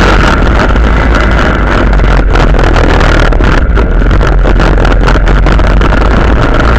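Quad bike (ATV) engine running steadily under way over sand, with wind noise on the microphone; the sound is a dense, very loud rumble near overload.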